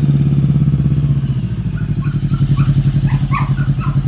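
Voge 525DSX parallel-twin engine idling with an even, bassy exhaust beat, just after starting, through a Two Brothers M2 slip-on on the cut-down stock pipe. From about a second in, a dog barks repeatedly in the background.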